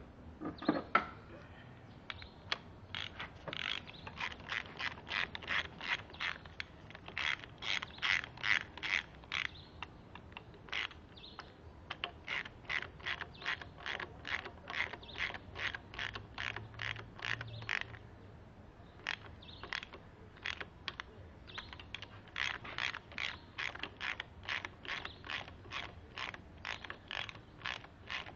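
Ratchet wrench clicking in steady runs of about three clicks a second, with short pauses, as the camshaft bearing cap bolts on a Toyota 4ZZ cylinder head are run down.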